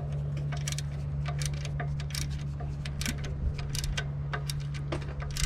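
Ratchet wrench clicking as the alternator's pivot bolt is tightened, with sharp separate clicks about two to three a second, often in pairs. A steady low hum runs underneath.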